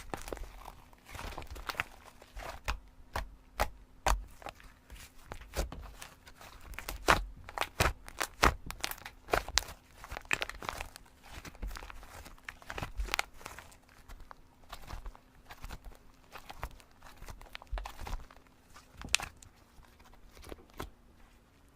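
Slime being squished and stretched by hand, giving irregular sharp clicks and pops.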